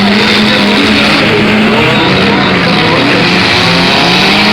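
Demolition derby cars' engines running hard at high revs, their pitch rising and falling over a loud, continuous din.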